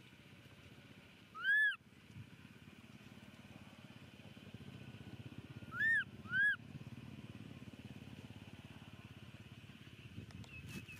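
Baby macaque giving three short, high crying calls, each rising then falling in pitch: one about a second and a half in, then two close together around six seconds, over a faint low rumble.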